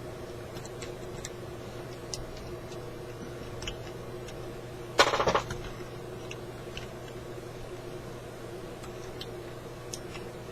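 Faint clicks and handling noises of small parts and tools being worked on a car radio, with one short, loud rattling clatter about halfway through, over a steady electrical hum.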